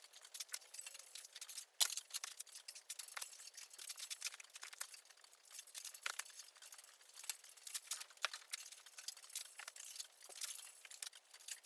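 Faint, irregular clicks and taps from a strip of steel plate being worked and bent by hand, thin-sounding with no low end.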